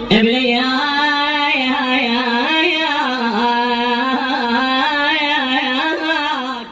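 A man singing one long, wavering, ornamented phrase of an Arabic mourning lament, drawn out on held notes without clear words.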